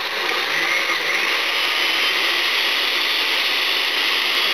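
Countertop blender with a glass jar running steadily, grinding green chiles, garlic and onion in a little water.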